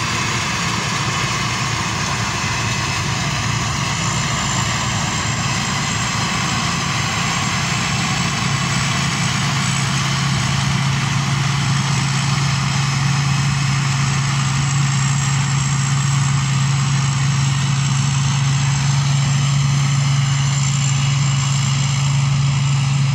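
Rice combine harvester's engine and threshing machinery running steadily: a constant drone with a strong low hum that grows stronger about halfway through.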